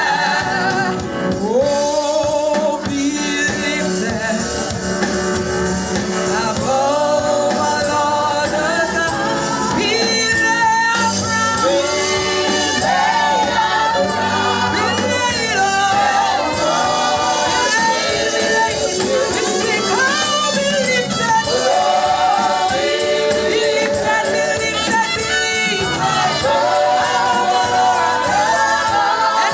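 Live gospel worship music: voices singing long, sliding notes over steady instrumental backing.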